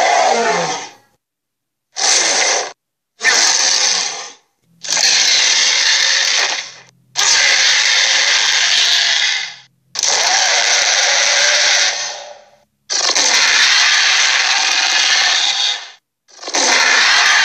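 A series of rough, noisy creature roar sound effects, each one to three seconds long, cut apart by sudden silences.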